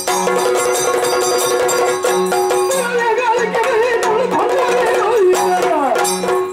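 Yakshagana background ensemble playing: a steady sruti drone with regularly spaced maddale and chende drum strokes and sharp struck hits keeping the rhythm. About three seconds in, a voice begins singing a wavering, ornamented melody over it.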